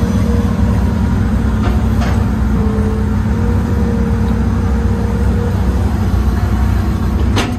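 Old Hitachi hydraulic excavator's diesel engine running steadily while it digs, heard from inside the cab, with a steady whine over the drone and a few short clicks.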